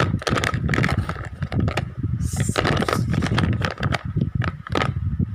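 Wax crayons clicking and clattering against each other and a plastic case as a hand rummages through them: a dense run of small clicks and scrapes.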